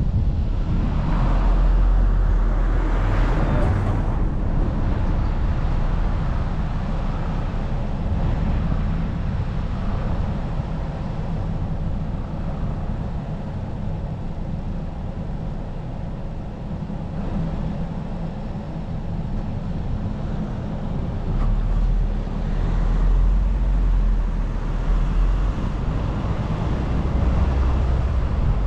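Car driving along a road: steady engine and tyre noise, with a heavier low rumble a couple of times.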